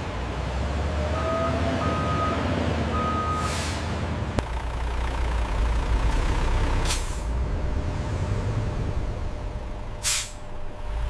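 Heavy truck engine running with a steady low rumble. It gives three short high beeps in the first few seconds, and three sharp air-brake hisses at about three-second intervals.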